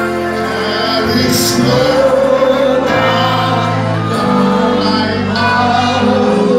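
Loud gospel praise music with singing over a bass line whose notes change every second or so.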